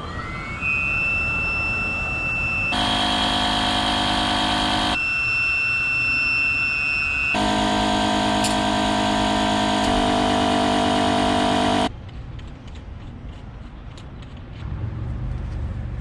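Synthesized electronic tones: a steady high whistle-like tone that glides up at the start alternates twice with a loud buzzing chord, and everything cuts off abruptly about twelve seconds in.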